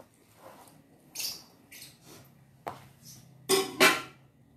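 Stainless-steel ladle clinking and scraping against metal cooking pots as broth is ladled onto rice, with two louder knocks close together near the end as the ladle is set back in the broth pot.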